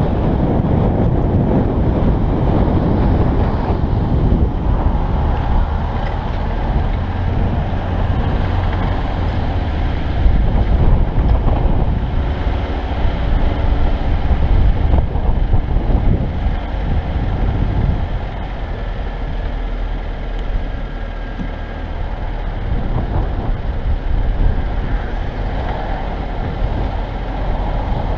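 Vehicle driving on wet pavement: steady engine, tyre and road noise with a heavy low rumble, easing somewhat past the halfway point as it slows through a lot.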